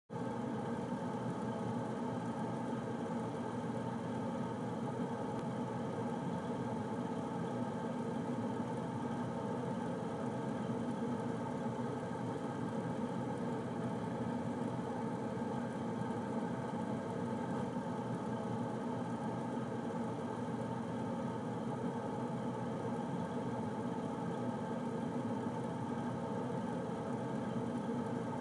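Air conditioner running with a steady hum and whir, with several fixed tones over a rushing noise that does not change.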